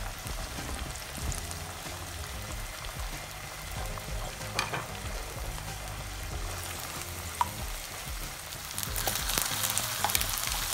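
Eggs frying in ghee in a pan beside vegetables, a steady sizzle with a few sharp clicks of a utensil against the pan. The sizzling grows louder about nine seconds in.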